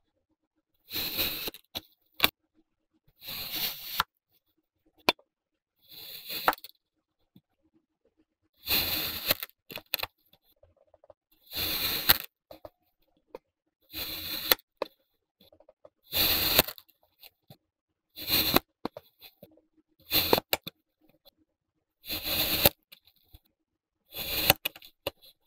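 Kinetic sand being cut: around ten separate slices, one every two to three seconds, each lasting under a second, with quiet gaps between.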